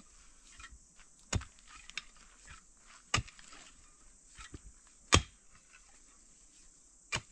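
Repeated sharp knocks: four loud strikes about two seconds apart, with lighter taps between.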